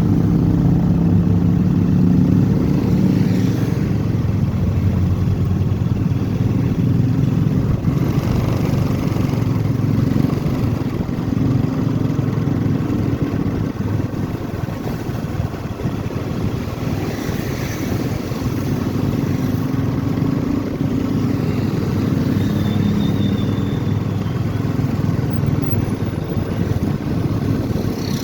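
Motorcycle engine running while riding, its pitch rising and falling with speed, over steady wind and road noise.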